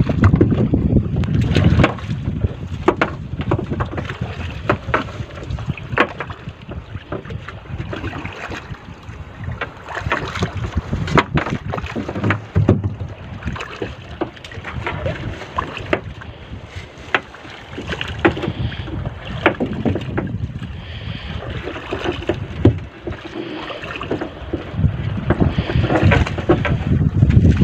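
Wind rumbling on the microphone over water sloshing around a small paddled outrigger boat, with frequent short knocks and rustles as a wet fishing net is pulled in over the side and piled in the hull. The wind rumble is heaviest about the first two seconds and again near the end.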